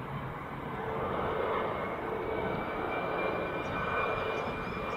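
Fokker jet airliner on landing approach, its two rear-mounted Rolls-Royce Tay turbofans giving a steady jet rumble with a high whine over it, growing a little louder about a second in.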